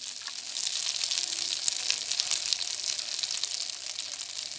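Oil sizzling and crackling steadily around egg-coated dough balls frying in the hollows of a multi-well pan.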